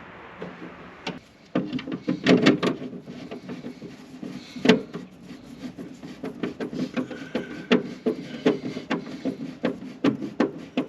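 Irregular clicks and knocks of hand work on a tractor dash: a plastic dash bezel being handled and fitted, and bolts being run in with a ratchet and 10 mm socket.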